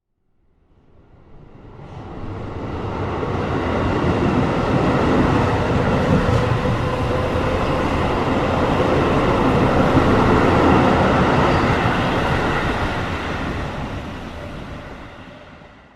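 A train's rumble and rattle, swelling up from silence over the first few seconds, holding loud through the middle and dying away near the end, as a train passing by does.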